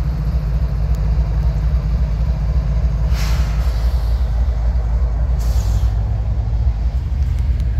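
GE ES44AC diesel locomotive running light past at low speed: a steady, deep engine rumble, with two short hisses of air about three and five and a half seconds in.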